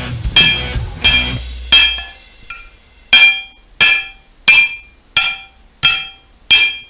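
Hammer striking a ringing anvil in a steady rhythm, about three blows every two seconds. Music underneath fades out over the first two seconds.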